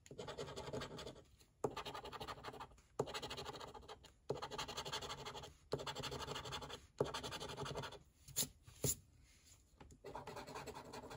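A coin scratching the coating off a Gold Rush Limited scratch-off lottery ticket in repeated strokes, each about a second long with short pauses between. About two-thirds of the way through there are two sharp clicks.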